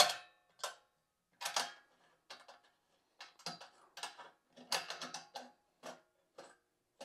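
Metal tri-clamp being closed around the tower-to-lid joint of a stainless steel still and tightened by hand: a string of short, irregular metal clicks and clinks, the sharpest right at the start and a quick cluster about five seconds in.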